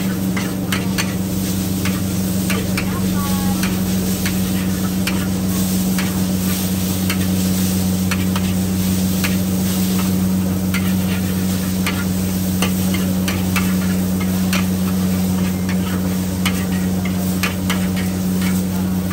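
Metal spatula scraping and clanking against a wok in quick, irregular strokes as noodles are stir-fried, with the food sizzling in the hot oil. A steady low hum runs underneath throughout.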